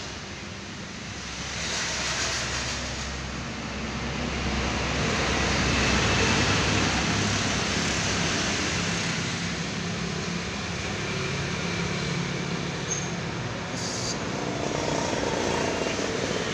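Street traffic with motorcycle engines, one passing close by and loudest around the middle, over a steady traffic hum.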